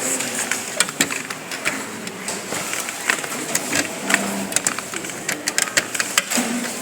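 Irregular clicks, taps and clatter of hands working on a desktop computer's system unit, handling its metal and plastic parts.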